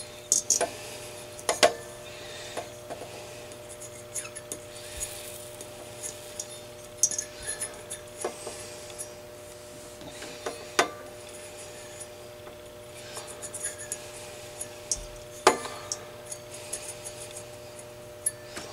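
Irregular light clicks, taps and rubbing of a soldering iron tip and fingers working on the metal pins of a glass 3-500Z transmitting tube as the pins are re-tinned, with a faint steady hum underneath.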